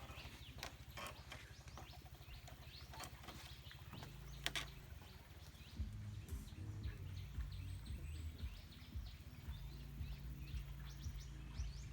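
Outdoor ambience: a steady low rumble of handling noise on the microphone, scattered light clicks, and from about halfway through many faint, short bird chirps.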